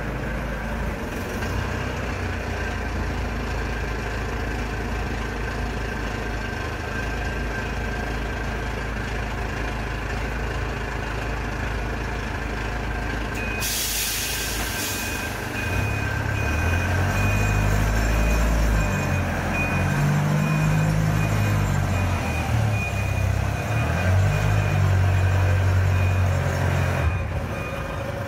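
Kaystar 3.5-ton off-road forklift's engine idling steadily. About halfway through there is a brief hiss, then a warning beeper starts sounding in a run of short beeps. The engine rises and falls as the forklift drives off.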